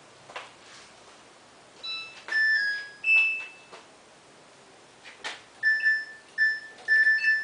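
Washing machine control panel beeping as its buttons are pressed to set a spin cycle. A few faint clicks come first. Electronic beeps and a short chime follow about two seconds in, then a quick run of short beeps near the end.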